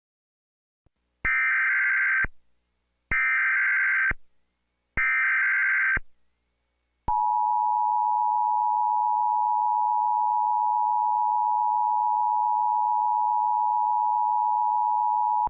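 Emergency Alert System tones: three one-second bursts of screeching SAME header data, about two seconds apart, then the steady two-tone EAS attention signal held for about eight seconds.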